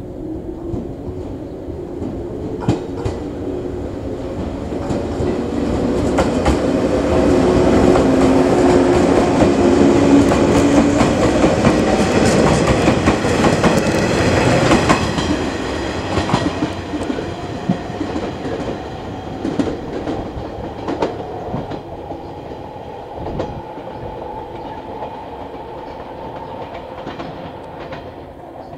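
JR 115-series electric train pulling away and passing close by: a motor hum rising in pitch as it accelerates, with the wheels clicking over rail joints. It is loudest about ten to fifteen seconds in as the cars go by, then fades as the train draws away.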